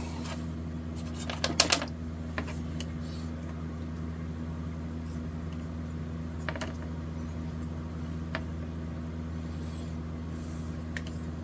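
Light clicks and ticks of wire and small parts being handled on a copper-shielded guitar pickguard: a quick cluster of clicks about a second and a half in, then a few scattered single ticks, over a steady low hum.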